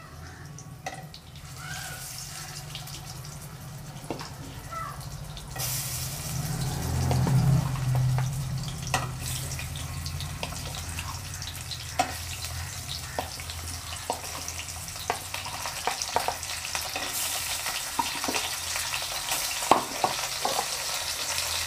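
Hilsa fish pieces sizzling as they fry in hot mustard oil in a nonstick kadai. The sizzle grows louder about six seconds in and carries on with scattered sharp clicks, over a low steady hum.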